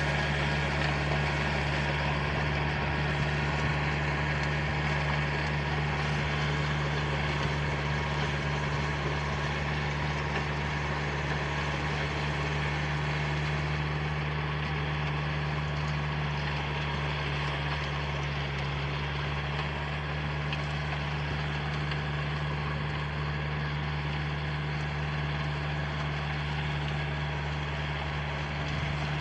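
Tractor engine running steadily under working load as the tractor pulls a rear-mounted tillage implement through the soil, forming ridged beds. The hum holds one even pitch with no change in speed.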